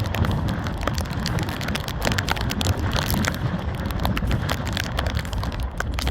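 Wind buffeting the microphone as a steady low rumble, with many small sharp crackles scattered throughout.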